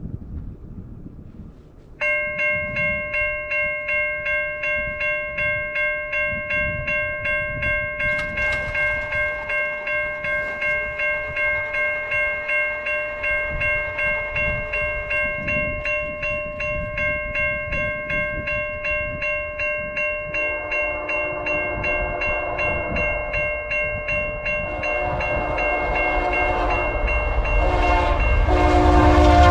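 Level-crossing bell ringing in steady pulses, starting about two seconds in. About two-thirds of the way through, a locomotive horn sounds in several blasts while the train's rumble grows, and right at the end the horn's pitch drops as the train passes.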